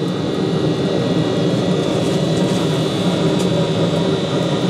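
A steady mechanical drone with a hiss over it, unchanging in level and pitch.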